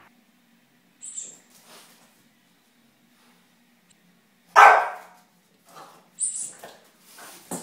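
French bulldog puppy barking: one loud bark just past halfway, with a few shorter, fainter sounds before and after it.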